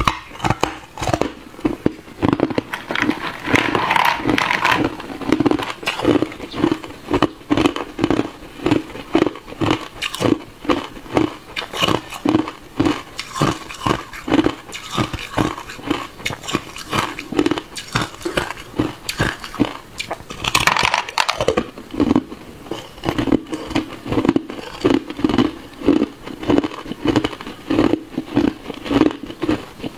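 A person crunching and chewing hard, clear ice cubes close to a clip-on microphone: a steady run of crisp crunches, about two a second, with two longer stretches of crackling.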